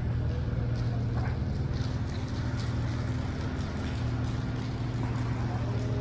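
Steady low motor hum, like an engine or machine running evenly, with a few faint ticks now and then.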